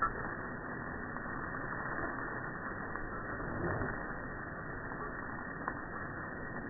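Steady rushing of water spraying from a garden hose onto the grass, with a few faint clicks.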